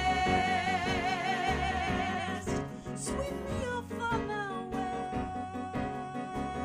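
A musical theatre song: a long held note with vibrato, a few sliding notes about three seconds in, then another long held note over a steady accompaniment.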